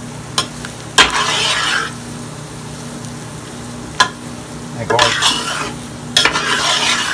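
Metal spoon stirring a thick roux with onions and bell peppers, scraping across the bottom of an aluminum pot in three strokes with sharp clinks of spoon on metal, over a steady low sizzle as the roux cooks.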